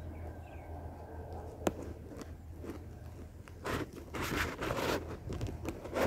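A short run of rapid high chirps from a small bird fades out near the start. A single sharp click follows, then about four seconds in comes a second or so of rustling and crunching, the loudest sound here.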